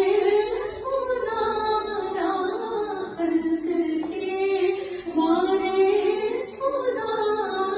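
A high voice singing a naat in long, drawn-out notes that wind up and down, in two phrases.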